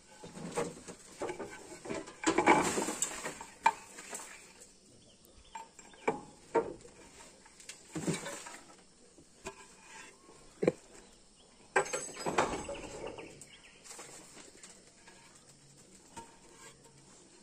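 Clay roof tiles clinking, knocking and scraping against each other and the metal frame as they are handled: irregular single knocks, with two longer stretches of scraping clatter.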